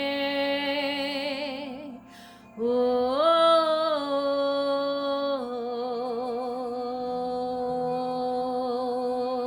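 A woman singing long, wordless held notes with vibrato in spontaneous worship (singing in the spirit). There is a breath about two seconds in, then she rises to a higher note and steps back down to a lower sustained one.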